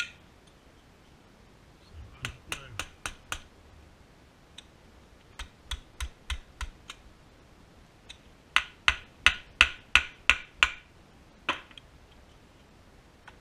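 Sharp metallic clicks from hand tools working on a Holley carburetor as its front float bowl is taken off. They come in three runs of about three clicks a second, the last run the loudest, followed by one lone click.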